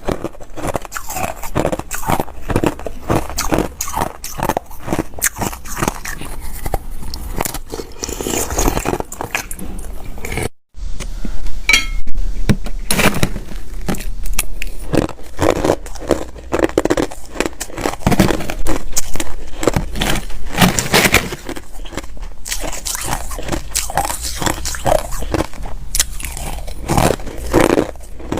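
A person biting and chewing hard ice close to the microphone: dense, irregular crunching and cracking, broken by a split-second silence about ten seconds in.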